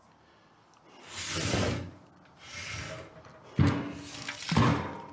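Cast-iron engine block of a John Deere Model E hit-and-miss engine being slid and turned over on a wooden workbench: a scraping slide about a second in, then two knocks with a short ring as the block is set down near the end.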